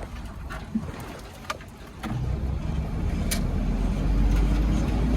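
A vehicle engine running with a deep rumble that builds from about two seconds in, its pitch rising slowly as it speeds up. A few light clicks sound in the first half.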